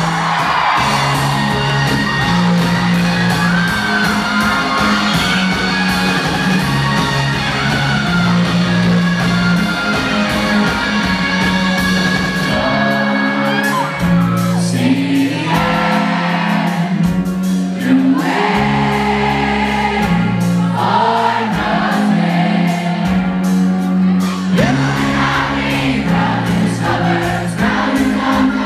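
A live rock band playing a song with electric guitars, bass and a singer, heard from among the audience in a large hall, with the crowd whooping and singing along.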